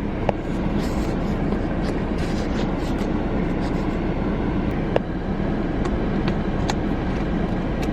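Steady low rumble inside a car cabin, with a few sharp clicks about a third of a second, five seconds and nearly seven seconds in.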